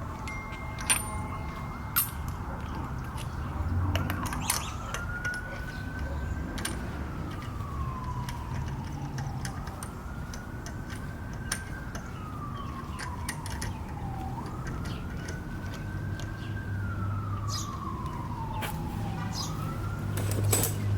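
An emergency-vehicle siren wailing, its pitch rising quickly and then falling slowly in about four long cycles, over scattered sharp clicks and knocks.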